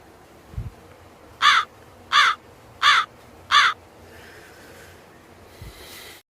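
A crow cawing four times in a steady series, each harsh caw about two-thirds of a second after the last.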